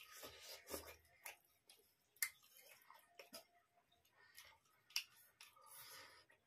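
Faint eating sounds: chewing and mouth noises with scattered sharp clicks, the sharpest about two seconds in and again about five seconds in, as rice and chicken curry are eaten by hand from steel plates.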